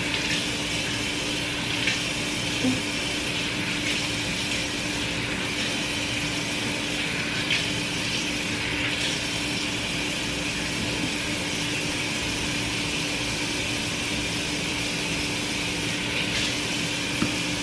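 Bathroom sink tap running steadily while water is splashed onto the face.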